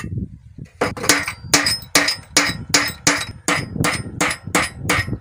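Hammer striking metal: about a dozen blows a little over two a second, starting about a second in, each with a short metallic ring.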